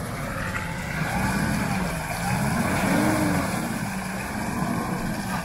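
Mitsubishi L200 pickup's engine revving under load, its pitch rising and falling and peaking about three seconds in, as the truck sits stuck in deep mud and tries to drive out.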